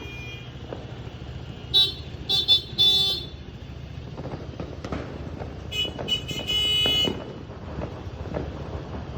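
Horns tooting over steady street and vehicle noise: three short blasts about two seconds in, then a few more ending in a longer blast around six to seven seconds in.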